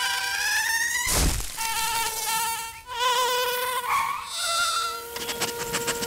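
Cartoon-style buzzing of a flying ladybird: a whining hum with many overtones that glides upward, broken by a short whoosh about a second in. It then comes back in wavering spurts that change pitch.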